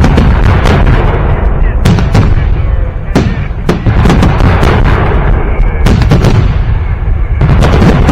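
Fireworks salute bursting overhead: a rapid, irregular series of loud booms and sharp cracks, a dozen or so overlapping, over a continuous low rumble of echoing detonations.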